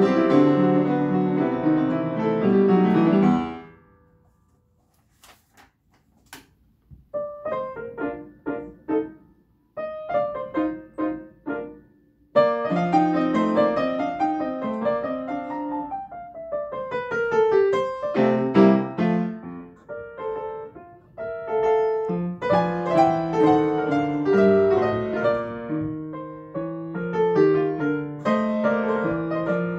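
Upright piano being played. The playing stops about three and a half seconds in, then after a few seconds' pause with two light clicks it starts again with sparse notes, building to full playing with both hands from about twelve seconds in.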